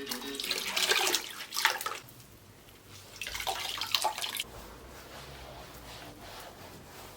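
Water running and splashing, in two bursts: one for about two seconds, then a shorter one a second later.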